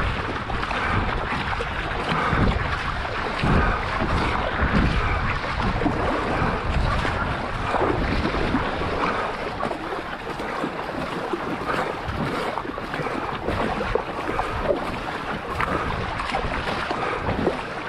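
Paddle strokes splashing and water rushing past the hull of a marathon racing canoe, with a low surge about once a second as the strokes go in. Wind buffets the microphone.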